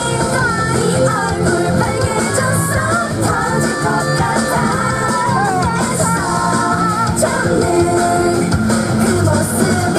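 K-pop girl-group song played loud through a stage PA, with a female voice singing the melody into a microphone over the full backing track.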